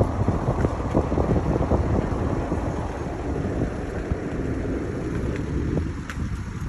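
Wind buffeting a phone's microphone: a rough, gusty low rumble that eases near the end.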